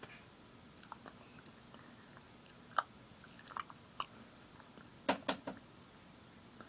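A few sharp, dry clicks and crackles over a faint steady hiss, close to the microphone, with the loudest cluster about five seconds in.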